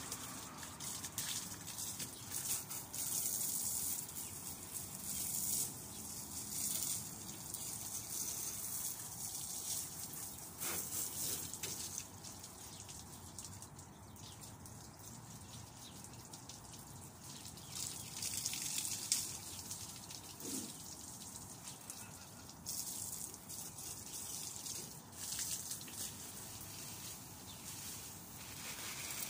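Water from a garden hose spraying and splashing onto a car, the hiss swelling and fading several times as the spray is moved about.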